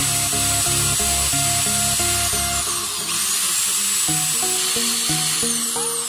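Small rotary tool's bit grinding into the top of a brass ring, a high-pitched whine that dips briefly about halfway through and winds down near the end. Background music with a plucked melody plays throughout.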